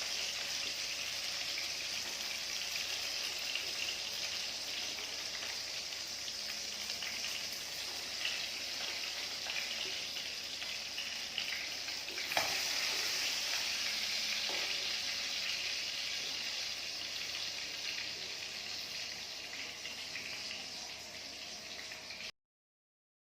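Chicken pieces frying in hot oil in a pan, a steady sizzle, with a single sharp knock of a utensil about halfway through. The sizzle eases slightly toward the end and cuts off suddenly.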